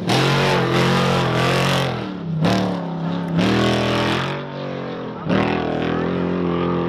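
Unlimited-class trophy truck's V8 engine at full throttle, its note climbing and then dropping several times as the throttle is lifted and reapplied over the course's jumps.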